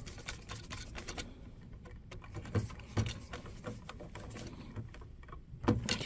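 Scattered light clicks and taps of needle-nose pliers working a wire hook closed around a light switch's terminal screw, with small sounds of the wire and switch being handled.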